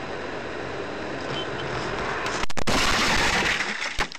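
Dashcam recording from inside a car on a snowy road: steady road and engine noise. About two and a half seconds in, a louder rushing, scraping noise takes over as the car crashes off the road and tips over. There is a sharp knock near the end.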